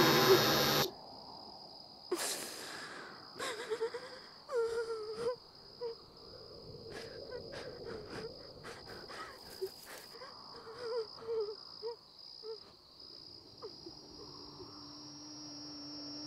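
A loud noise cuts off just under a second in, leaving a steady night-time cricket trill with scattered soft clicks and rustles and a few short breathy vocal sounds.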